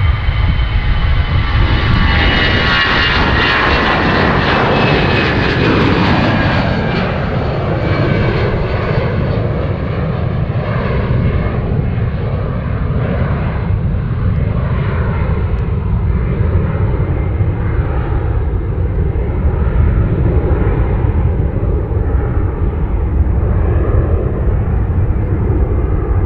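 Airbus A320's twin CFM56 turbofans at takeoff thrust as the airliner lifts off and climbs away. A high fan whine slides down in pitch over the first few seconds, leaving a heavy, steady jet rumble that grows duller as the aircraft recedes.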